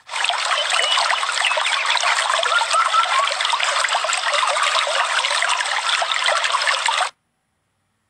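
Stream water rushing steadily, starting suddenly and cutting off abruptly about seven seconds in.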